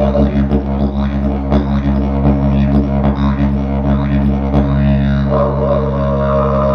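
Didgeridoo drone, a steady low tone with a pulsing rhythm worked into it by breath and tongue. About five seconds in, a higher sound rises and then holds over the drone.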